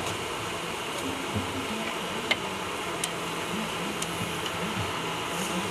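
Vegetables and noodles sizzling and steaming on a large flat iron griddle, a steady hiss, with a few sharp clicks of a metal spatula against the plate. The loudest click comes a little over two seconds in.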